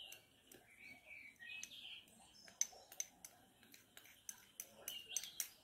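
Faint bird chirps in the background for the first couple of seconds, then a run of light, sharp clicks and taps from small objects being handled.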